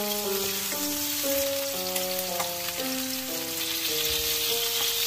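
Chickpeas frying in hot oil in a pan, a steady sizzle, with a background music melody over it.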